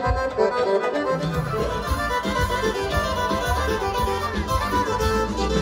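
Lively music: several melody lines over a steady beat.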